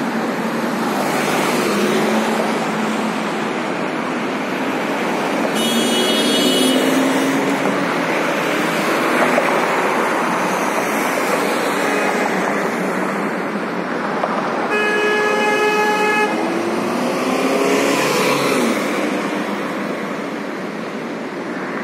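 Steady city street traffic with vehicles driving past. A car horn sounds for about a second and a half about two-thirds of the way in, and a shorter, higher-pitched tone comes earlier.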